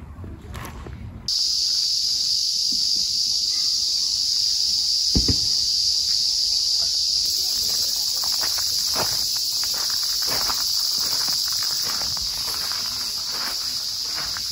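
Steady high-pitched chorus of summer insects, starting suddenly about a second in and running on evenly.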